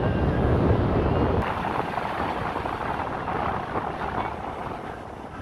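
A 4x4 driving along beach sand, heard from on board: a steady rush of engine, tyre and wind noise. The heavy low rumble drops away about a second and a half in, and the sound then slowly fades.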